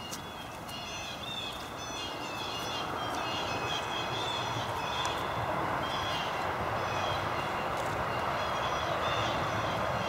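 Small songbirds chirping and twittering in quick, overlapping short notes, over a steady rushing noise that grows louder.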